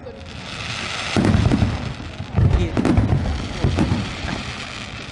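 Fireworks going off: a crackling hiss for about the first second, then a rapid series of booming shell bursts, several in the last four seconds.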